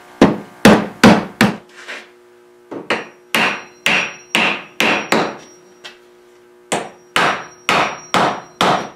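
Hammer blows on the wooden leg-and-stretcher assembly of a china cabinet, knocking the freshly glued joints tight. The blows come in three quick runs, about two a second, with short pauses between, and a faint ring hangs after some of them.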